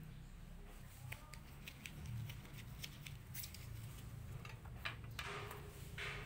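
Light clicks and taps of small items being handled by hand, with a short rustle about five seconds in, over a low steady hum.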